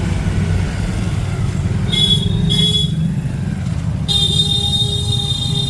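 Street traffic with a motor rumbling close by; a vehicle horn sounds twice in short toots about two seconds in, then a long, steady horn blast starts about four seconds in.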